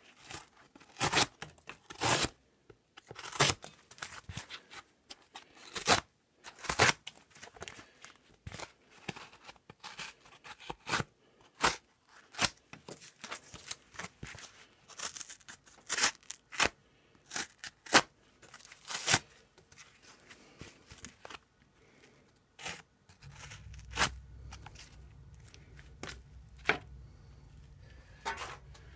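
XC75 carbon-steel neck knife cutting and chopping through a stiff yellow sheet: an irregular run of sharp cracks, scrapes and tearing sounds as the blade bites and the sheet breaks. A steady low hum comes in about 23 seconds in, with a few last cracks over it.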